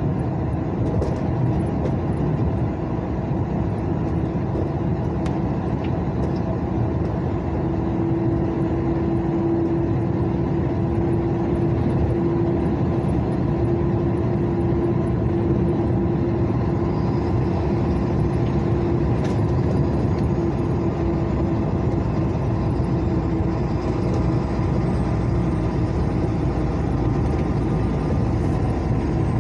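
A car travelling at steady speed on a smooth asphalt highway: constant tyre and engine noise with a steady hum running through it.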